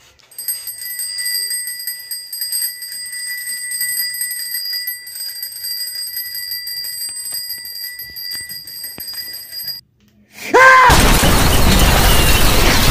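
A bicycle bell rung over and over in quick succession for about ten seconds, then cut off abruptly. After a brief silence a loud, steady rush of noise sets in, an explosion sound effect.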